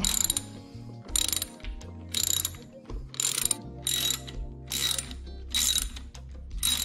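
Hand socket ratchet worked back and forth to loosen a hex bolt on a Segway Ninebot Max G30's stem clamp. Each return stroke gives a short burst of rapid pawl clicks, about once a second.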